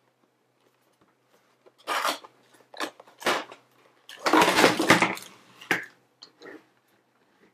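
Cardboard and plastic packaging of a toy set being opened by hand, crinkling and rustling in several short bursts, the longest and loudest about four seconds in.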